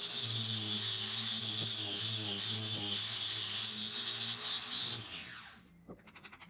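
Small electric disc sander running steadily while sanding down the wooden frame's curved edge. It is switched off about five seconds in and winds down with a falling whine.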